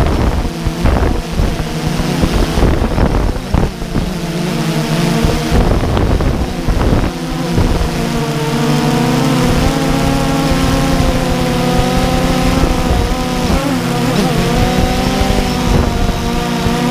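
Quadcopter drone's motors and propellers buzzing steadily in flight, a blend of several close pitches, heard from the camera on board. Wind gusts buffet the microphone through the first several seconds, and the pitch dips and recovers briefly about two-thirds of the way in as the drone adjusts its thrust.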